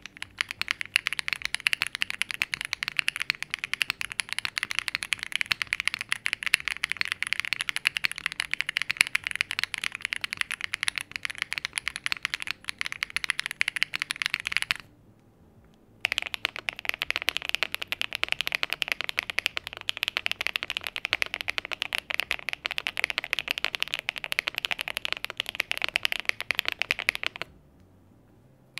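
Aluminium-case mechanical keyboards typed on quickly for a sound test: a dense run of keystroke clacks for about fifteen seconds, a short pause, then a second stretch of typing that sounds a little fuller and stops shortly before the end.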